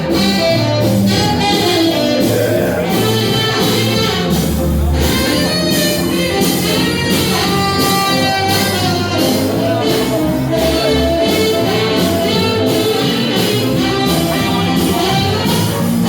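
Band music with a steady beat, in a jazz style.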